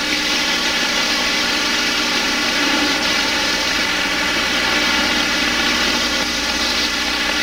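Floured chicken pieces sizzling in a hot frying pan, a steady sizzle that builds a little in the first second as the pieces go in.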